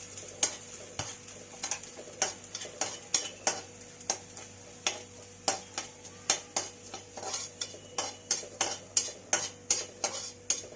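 A spoon stirring and scraping in a kadhai about two to three strokes a second, over a faint sizzle of kamarkas gum frying in ghee.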